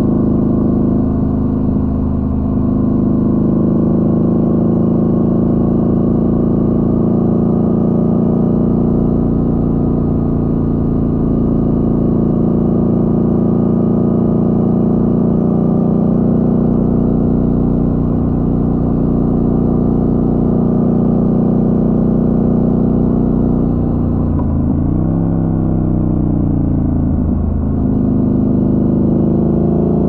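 Twin-cylinder motorcycle engine running steadily under way, heard from on the bike. Near the end the engine note falls and then rises again.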